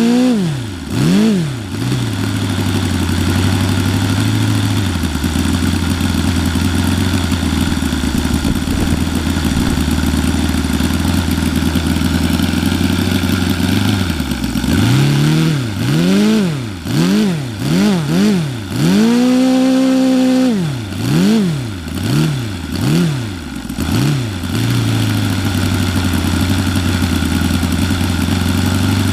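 Saito FA-90R3 three-cylinder radial four-stroke glow engine running with its propeller spinning, on E85 pump fuel with synthetic oil and no nitro. It is blipped up and down a few times, runs steadily for a long stretch, then is revved in a string of quick blips with a short hold at high speed before settling back to steady running. The owner says its idle mixture needs leaning on this fuel.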